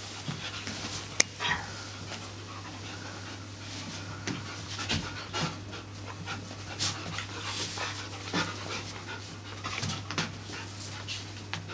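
Siberian huskies panting as they wrestle on a blanket, with scuffling and a sharp click about a second in.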